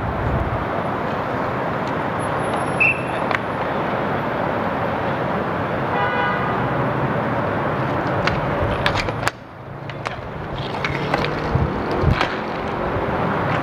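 Steady outdoor background noise of city traffic around a roller hockey rink, with a short horn toot about six seconds in. In the second half come several sharp clacks of sticks and puck as play comes to the net.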